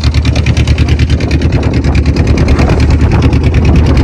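Boat engine running steadily with a fast, even pulsing beat.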